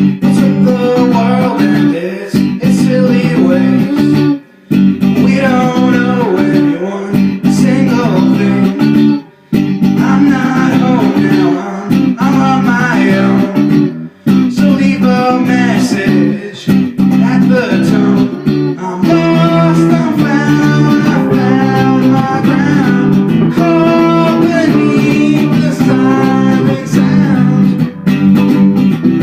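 Rock band playing guitars and bass, with short breaks in the playing about four, nine and fourteen seconds in.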